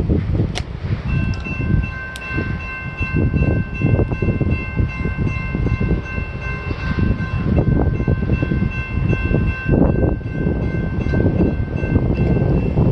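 Diesel freight locomotive's multi-chime air horn sounding one long held chord over the heavy rumble of a passing freight train. The horn comes in about a second in, its lowest note drops out around ten seconds, and the rest holds until near the end.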